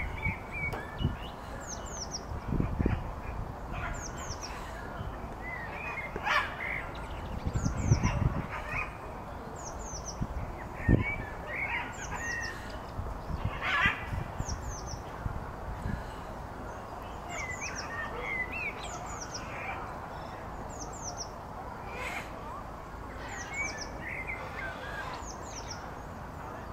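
Birds chirping and calling: short high descending chirps repeat every second or two, with some lower calls in between and a few low rumbles.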